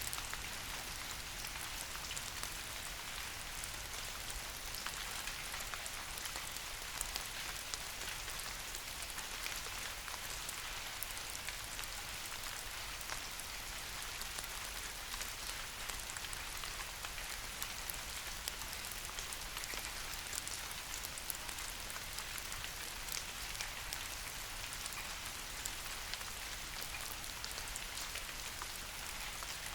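Steady rain falling on leafy trees, an even hiss dotted with the small ticks of individual drops hitting leaves.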